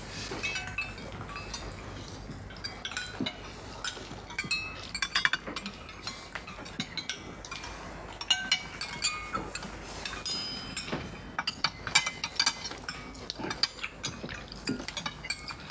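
Diners' spoons clinking against soup bowls and glassware: many short, light clinks, each with a brief ring, scattered irregularly throughout.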